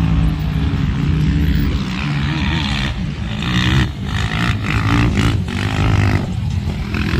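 Off-road vehicle engines running, their revs rising and falling.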